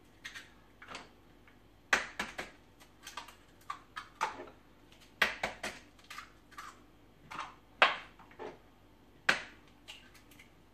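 Eggs being cracked into a mixing bowl: an irregular string of sharp taps and clicks, about one or two a second, as the shells are knocked against the bowl and handled.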